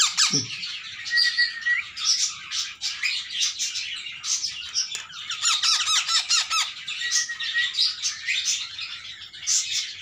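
Baby Indian ringneck parrot chicks giving rapid, repeated squawking begging calls for food, with a few short whistly notes. They keep begging although their crops are already full after hand-feeding.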